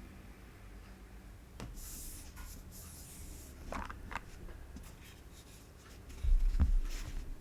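Handling sounds at a mechanical keyboard before typing starts: a few scattered clicks and a rubbing swish, then a low thump about six seconds in, the loudest sound.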